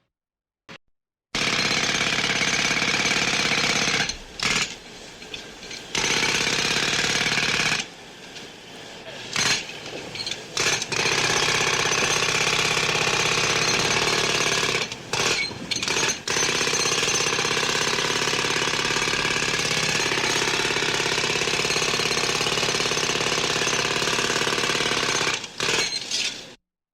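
Jackhammer hammering in long runs, stopping briefly several times between them, with a sudden start after a moment of silence.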